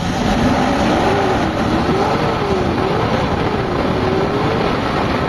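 Carbureted Toyota Hi-Ace van engine being revved, its pitch rising and falling repeatedly about once a second as the throttle is blipped. It is running on a freshly cleaned and retuned carburetor and distributor, fitted to cure hard cold starting.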